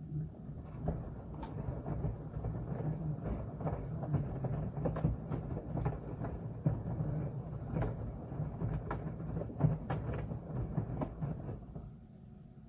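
Washing machine running its wash cycle: the drum starts turning suddenly and churns the wet laundry with a low rumble and many irregular knocks and splashes, then stops about twelve seconds in, leaving only a faint hum.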